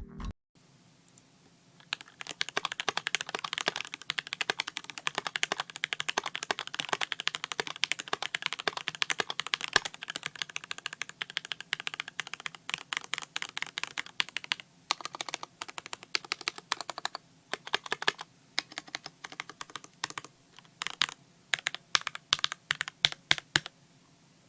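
Typing sound test on a custom tenkeyless mechanical keyboard with Gateron Glow switches, GMK keycaps and an acrylic case. Fast continuous typing starts about two seconds in. From about halfway, it turns into slower separate keystrokes and short runs of presses.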